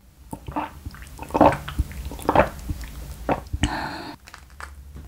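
Gulps of milk swallowed from a glass mug: about four swallows roughly a second apart, then a brief breathy hiss.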